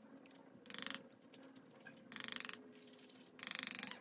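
The plastic end of a spray bottle grinding baked powder blush through a small powder grinder: three short rasping, finely clicking strokes about a second and a half apart.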